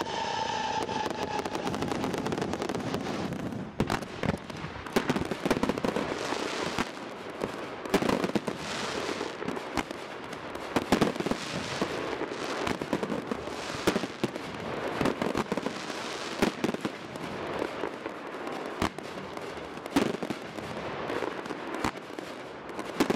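Consumer firework cakes firing, among them a 168-shot compound cake and a 49-shot fan cake: a continuous crackle and fizz of bursting stars, with sharp bangs of shots breaking every second or so from about four seconds in.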